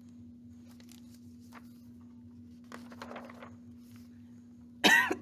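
A book page turns with a soft paper rustle over a steady low hum, then a woman coughs loudly near the end.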